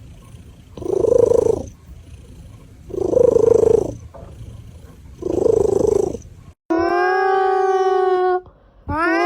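A cat giving three rough, drawn-out calls, each about a second long and about two seconds apart. Then a long, clear, steady-pitched howl, stopping and starting again near the end.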